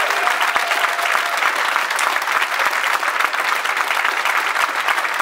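Audience applauding, dense steady clapping, with the last held note of the dance music dying away about a second in.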